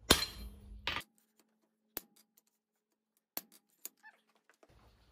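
Two hammer blows on a blacksmith's guillotine tool with flat dies, about a second apart, each ringing briefly as the hot steel is swaged down, followed by a few faint metallic clicks.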